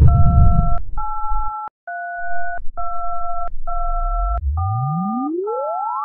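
A run of touch-tone telephone keypad beeps: about seven steady two-note tones, each under a second long, with short gaps between them. About four and a half seconds in, a pure tone begins gliding steadily upward from a low hum to a high whistle.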